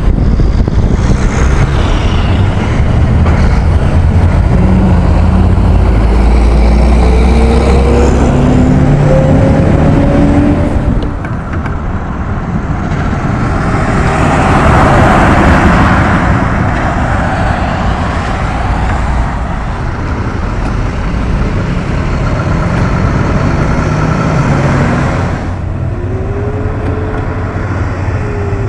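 Mack trucks on the road: heavy diesel engines running hard with pitch climbing as they accelerate, broken by sudden cuts. In the middle a broad rush of road noise swells and fades as a truck goes by, and near the end an engine note rises again.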